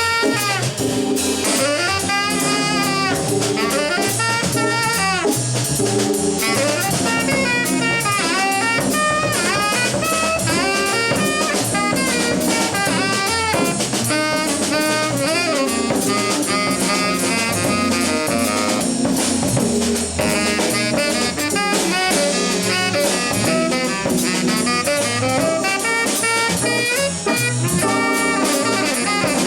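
Live jazz trio playing: a drum kit keeps time under a quick, winding lead melody, with a bass line moving note to note below.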